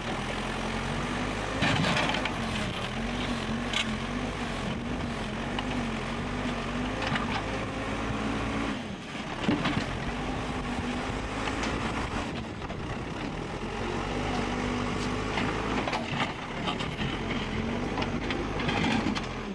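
An engine running steadily at an even, slightly wavering pitch, with scattered short knocks and clicks.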